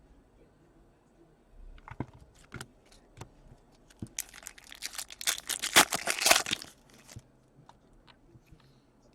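A trading-card pack wrapper being torn open and crinkled, after a few light clicks and taps of cards being handled. The crinkling is loudest from about four to seven seconds in.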